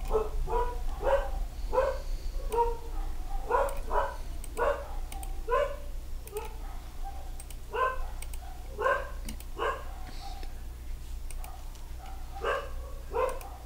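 A dog barking in short, repeated barks, one or two a second and irregularly spaced, with faint clicks between them.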